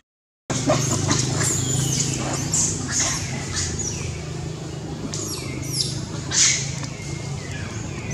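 A string of short, high-pitched chirps and squeaks, most falling in pitch, over a steady low hum. The sound cuts in after about half a second of silence at the start.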